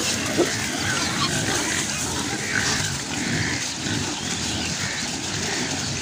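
A large herd of pigs grunting as they forage, making a dense, steady chorus with a few short higher calls scattered through it.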